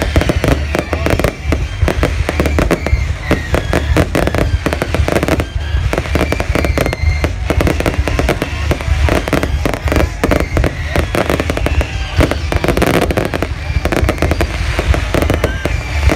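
A fireworks display going off in a dense, continuous barrage of bangs and crackles.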